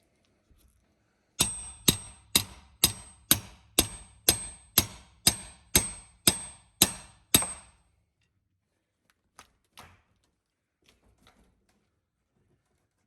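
A hammer striking metal: thirteen sharp blows at about two a second, each with a short high ring, then a few faint knocks.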